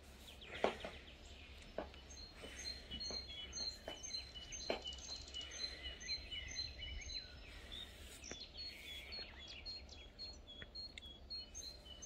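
Several songbirds chirping and singing in short, high, repeated notes. In the first five seconds a few sharp clicks of high heels land on stone paving.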